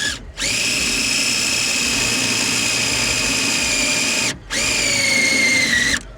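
Power drill driving half-inch metal screws: a brief blip, then a long steady whine, a short pause and a second run whose pitch sags a little near its end as it loads up.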